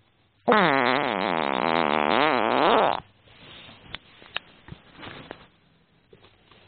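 A long, loud fart lasting about two and a half seconds, with a wavering pitch; it starts suddenly about half a second in and cuts off sharply. It is followed by a few faint clicks and rustling.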